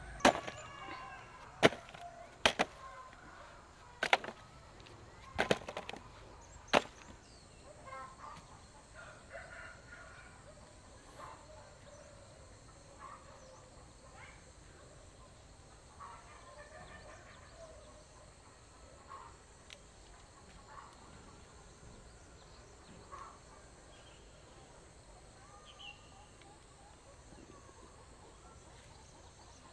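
Six sharp chopping strikes, like a blade hitting wood, spaced a second or so apart in the first seven seconds. After them come only faint scattered small ticks and short soft sounds.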